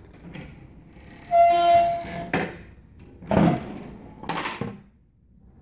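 Steel folding leg of a stage table being swung on its rebuilt bolt pivot, working as it should: a steady metal squeal lasting about a second, a sharp click, then two short clattering knocks from the frame.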